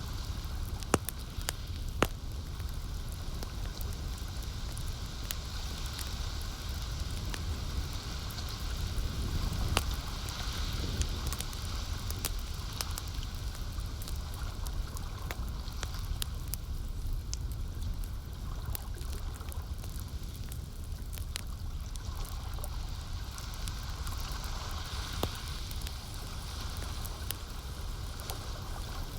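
Campfire crackling, with scattered sharp pops over a steady low rumble, mixed with the gentle wash of lake water.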